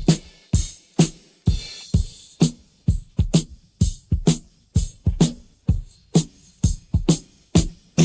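Rock drum kit, isolated from the band's studio mix, playing a steady beat: kick and snare strokes about twice a second, with cymbal wash that thins out partway through.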